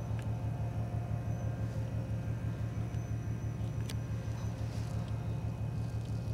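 Low, steady engine throb pulsing about five or six times a second, with a single sharp click about four seconds in.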